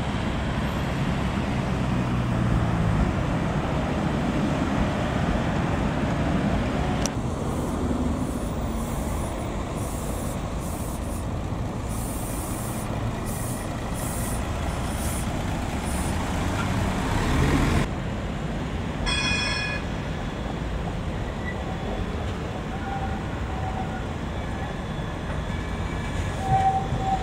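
Tram running with a steady rumble of motors and wheels. A high hissing comes and goes through the middle, and a short ringing tone sounds about two-thirds of the way through.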